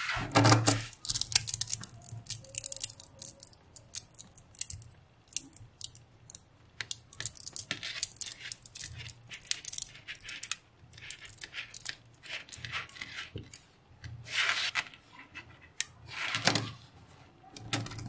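Small magnetic balls clicking and clattering as they snap together and are handled, in quick irregular clicks, with a couple of longer rattling bursts near the end.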